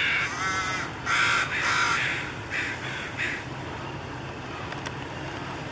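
Common ravens calling: a run of several short, harsh caws and croaks in quick succession over the first three seconds or so, then fainter calls.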